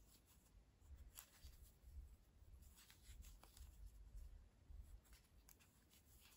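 Near silence: faint rustling of yarn being drawn through with a metal crochet hook, with a few soft ticks of the hook.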